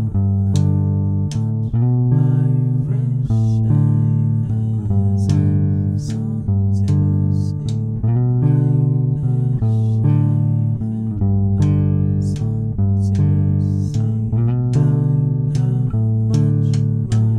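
Math rock instrumental: guitar and bass guitar playing busy, shifting picked note patterns over a strong low bass line, with short sharp strikes along the way.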